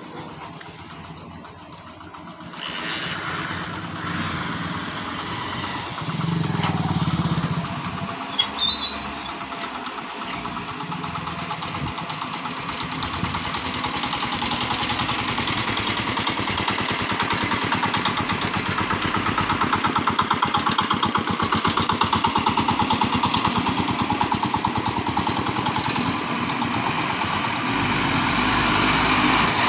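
Diesel engine of a loaded Tata dump truck running as it drives up to and across the railway tracks, growing louder as it comes closer, with a fast, even engine throb. A few sharp knocks come about eight to nine seconds in.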